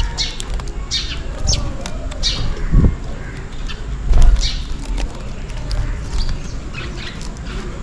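House sparrows chirping: many short, high chirps in irregular runs. Low rumbling thumps come about three and four seconds in, the second the loudest sound.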